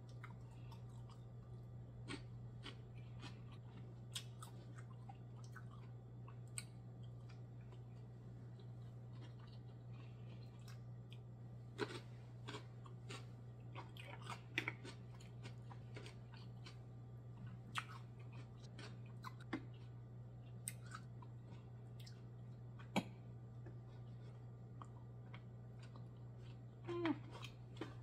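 Close-miked chewing and mouth sounds of someone eating steamed black mussels and rice by hand, with scattered sharp clicks and a low steady hum beneath.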